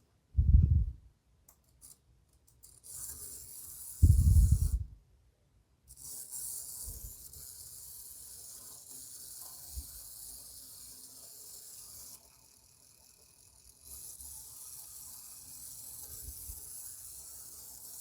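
Tiny T-gauge (1:450 scale) Hankyu 9000 model train running on its track, giving a faint steady high hiss that drops out briefly about two-thirds of the way through. Two dull thumps, one under a second in and one about four seconds in.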